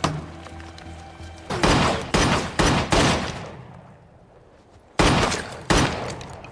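Handgun shots: four in quick succession, then two more about two seconds later, each trailing off in a short echo. Background music plays underneath at the start.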